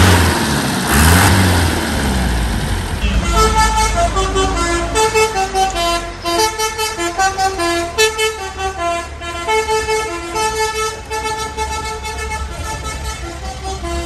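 Loud truck engine noise for the first few seconds, then a telolet basuri multi-tone truck horn playing a quick melody of short stepped notes over the running engine.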